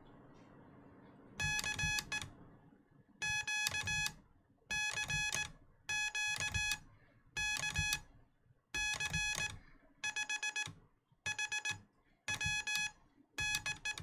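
Morse code (CW) sent by hand: a buzzy beep keyed on and off in dots and dashes, in about ten letter groups. It is a CQ general call followed by the call sign KC5HWB.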